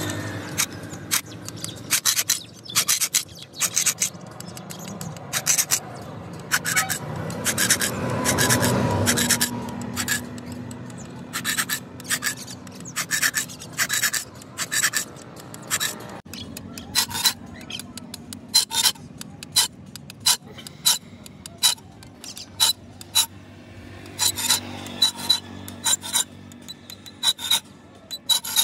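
Hand file rasping along the edge of a steel sickle blade in short, quick strokes that come in runs with brief pauses, as the blade is sharpened.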